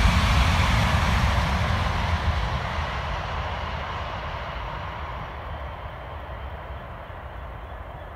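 Passenger train passing and rolling away, its rumble and wheel-on-rail hiss fading steadily.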